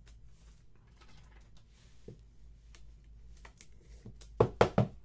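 Trading card being handled at a table: a faint plastic rustle as it slides into a clear card holder and a small click about two seconds in, then three or four sharp knocks on the tabletop in quick succession near the end.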